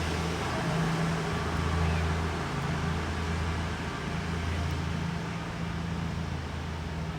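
An East Midlands Railway train idling at the platform: a steady low engine hum that swells and fades every second or two, over a wash of station background noise.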